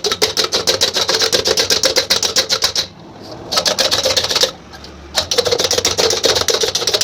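Hand-operated vegetable chopper chopping onion pieces fine: rapid, even clicking at about ten a second, in three runs with short pauses between.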